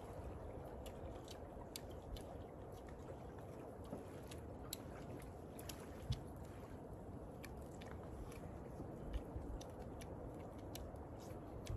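Two people eating: faint chewing with scattered small clicks of utensils and food, over a low steady background hiss, and one soft thump about six seconds in.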